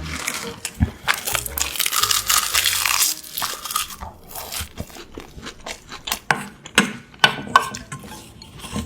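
Close-up eating sounds: a stretch of crunching and crackling during the first three seconds, then scattered crisp clicks and bites.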